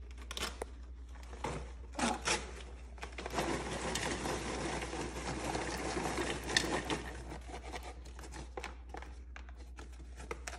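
Paper microwave-popcorn bag crinkling as it is handled and opened, then popped popcorn poured and shaken out of it into a bowl, a dense rustling that lasts a few seconds in the middle before thinning to scattered crackles.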